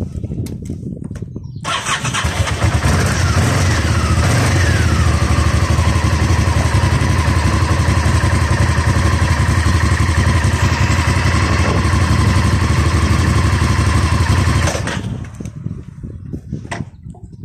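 Honda VTR1000 Firestorm's 90-degree V-twin engine running. It idles at first, then about two seconds in rises suddenly to a much louder, steady note held for about thirteen seconds, and drops back to idle near the end.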